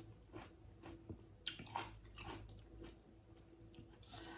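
A person faintly chewing and biting on fish, with scattered small mouth clicks and smacks.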